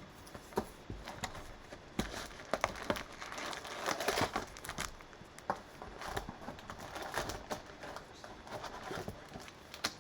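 Plastic wrapping crinkling and tearing in irregular bursts, with scattered taps and rustles, as a sealed box of cellophane-wrapped trading card packs is opened and emptied.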